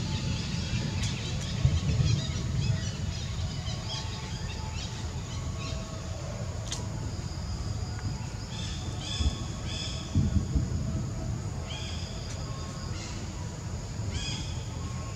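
Outdoor ambience of birds calling in short, repeated chirps, in clusters about two-thirds of the way through and again near the end, over a steady low rumble with a couple of soft thumps.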